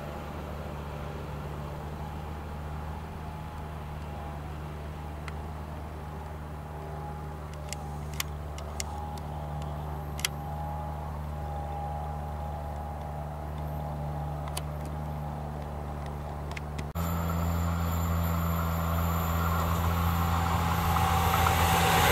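A receding night train: a steady low hum with a few faint clicks. About 17 seconds in, this gives way to a louder hum and a rising rush as an ICE 3 high-speed train approaches.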